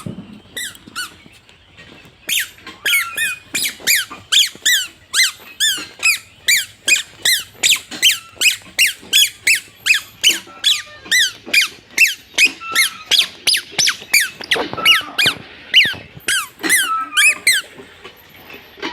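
A long, regular run of short, high squeaks, each dropping in pitch, about two to three a second, stopping shortly before the end.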